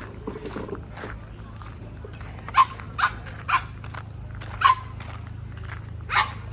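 A dog barking: five short, sharp barks from about two and a half seconds in, over a steady low hum.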